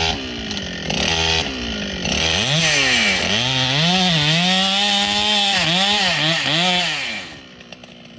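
Ported Husqvarna 395XP chainsaw with a 36-inch bar running at full throttle in a big log, its pitch dipping and recovering as the chain loads in the cut. About seven seconds in, the engine drops off to a low idle.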